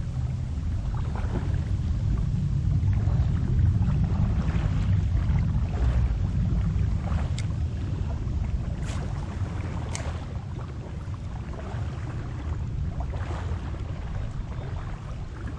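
Wind buffeting the microphone in a steady low rumble, with a few faint sharp clicks about halfway through.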